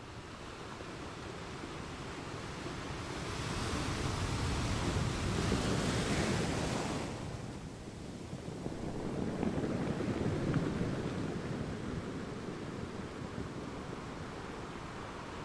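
Ocean waves washing on the shore. One wave builds for a few seconds and breaks with a hissing rush about halfway through, then a second, duller surge follows before the surf settles to a steady wash.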